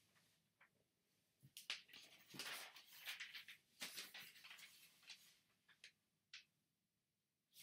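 Faint paper sounds from a sheet of origami paper being handled: several short rustles as it is flipped over and slid across a cutting mat, then a few brief crisp crinkles as it is folded corner to corner into a triangle and pressed flat.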